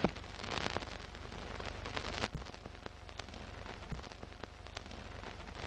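Old-film crackle: a steady hiss over a low rumble, peppered with scattered clicks and pops, laid under a film-leader countdown.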